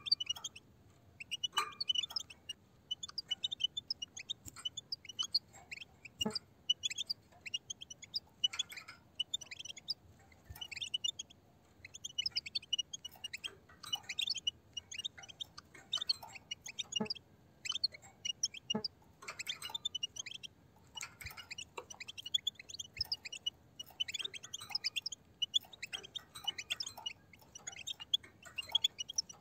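A flock of European goldfinches twittering: many quick, high chirps overlapping continuously, with a few short clicks in between.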